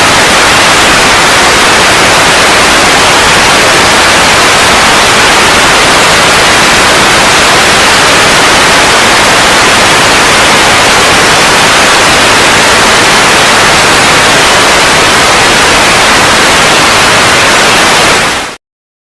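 Loud, steady TV-style static hiss that cuts off suddenly near the end.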